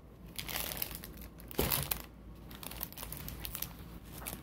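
Plastic-covered diamond-painting canvas crinkling and rustling as it is unrolled and smoothed flat by hand, in irregular strokes with a sharper crackle about one and a half seconds in.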